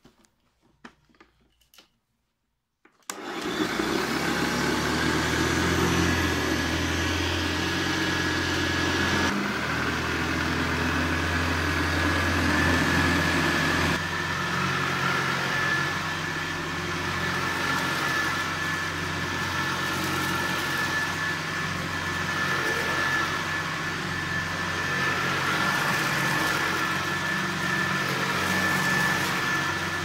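1983 Hoover Ranger U4274 upright vacuum cleaner switched on about three seconds in, after a few faint clicks. It then runs steadily with a high whine over a low hum as it is pushed back and forth over carpet.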